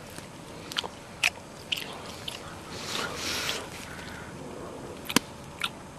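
A person chewing a raw grub with the mouth, a scatter of small wet clicks and smacks, with a breathy sound about three seconds in.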